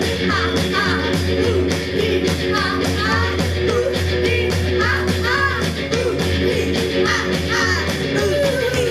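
Live garage-punk band playing loudly: electric guitar over a steady drum beat.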